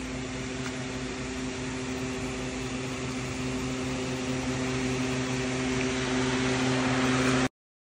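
Steady mechanical hum with a low, even pitch, growing slightly louder, that cuts off abruptly near the end.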